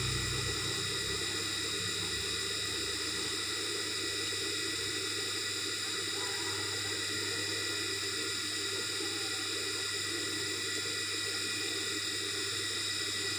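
Steady hum and hiss with several fixed high whining tones and no rhythm; a low rumble fades out about a second in.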